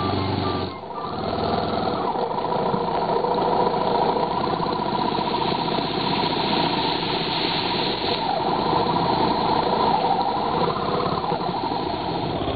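Motorcycle engine running steadily under way on a dirt track, after a brief tail of background music that stops within the first second.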